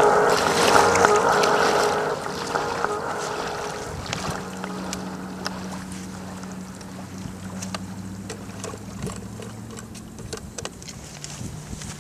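Music fades out over the first couple of seconds. Under it, the RC jet boat's small two-stroke Poulan weed-eater engine idles steadily at the water's edge as a low hum, with scattered faint ticks.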